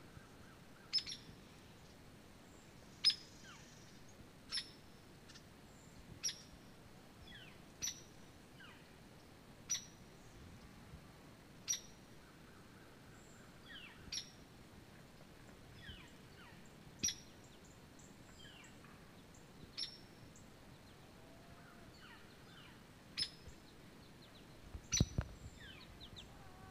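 A songbird repeating a sharp, high chip note about every one and a half to two seconds, with fainter calls between. A brief low thump comes near the end.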